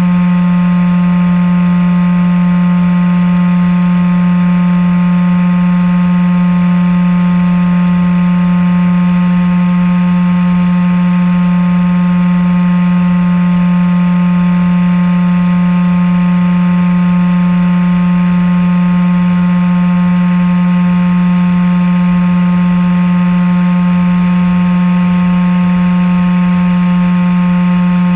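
Steady hum of the RC flying wing's motor and propeller as heard by its onboard camera, holding one constant pitch with a strong low tone and a set of higher steady tones above it: the plane cruising at a steady throttle.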